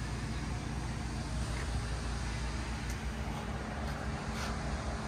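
Steady low outdoor rumble of wind and traffic noise, with a few faint ticks.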